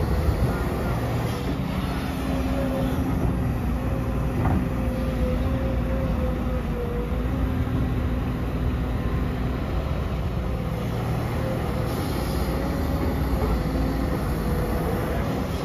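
Komatsu PC200 hydraulic excavator's diesel engine running steadily, a low rumble with a steady, slightly wavering whine over it.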